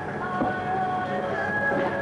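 Background music with several held notes overlapping and changing pitch.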